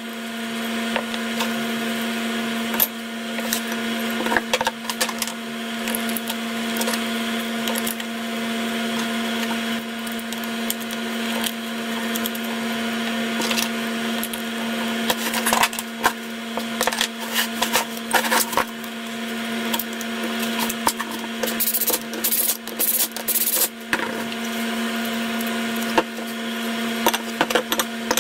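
Irregular clinks, knocks and scrapes of machined metal motor parts, an impeller disc and a base plate, being handled and fitted together by hand on a plywood board, with a busier patch of clatter about three quarters of the way through. A steady hum runs underneath.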